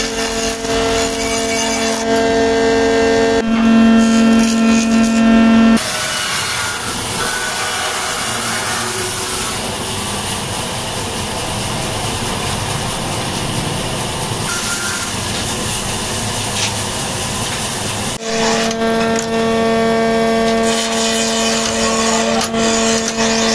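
Woodworking machines cutting wood for cue sticks: first a motor-driven cutter running with a steady whine as a wooden strip is fed through, then a rough, hissing scrape of a cue blank being worked on a lathe, and a steady machine whine again for the last few seconds.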